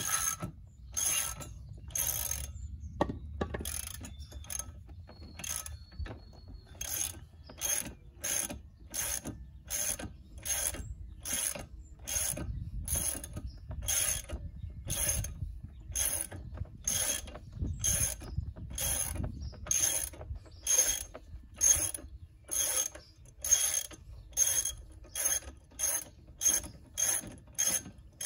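Socket ratchet wrench clicking in repeated strokes as the propeller nut on a Mercury 150 outboard's lower unit is unscrewed, about one stroke a second, quickening near the end.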